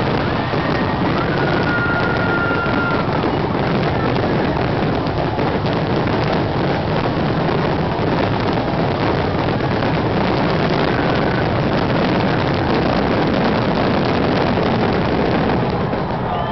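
Fireworks finale barrage: many aerial shells bursting in rapid, overlapping succession, with crackling, merging into one continuous loud din that thins out near the end.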